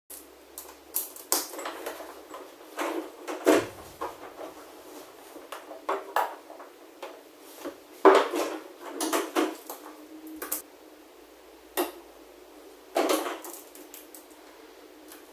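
Hand tools and small metal parts being handled against a steel roof rack: irregular clicks, taps and clatters, the loudest about three and a half and eight seconds in.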